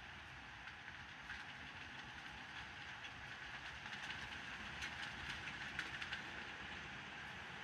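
Rain falling steadily: an even hiss with many small ticks of close drops, the ticks thickest around the middle.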